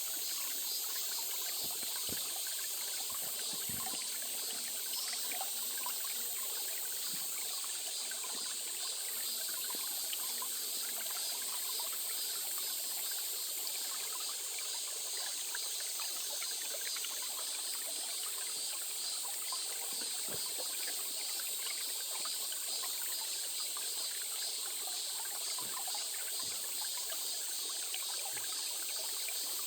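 A small stream trickling and flowing steadily, under a constant high-pitched hiss.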